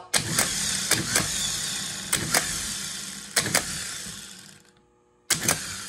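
Rebuilt GM starter motor running free on the bench off a battery charger, its sound fading steadily over about four seconds and then stopping. A few sharp clicks come over the running.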